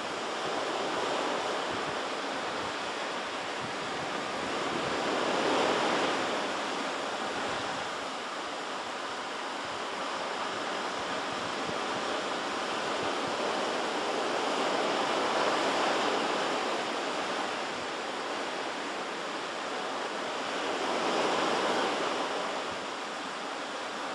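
Pacific Ocean surf washing onto the shore: a steady rushing noise that swells louder and eases off every several seconds as waves break.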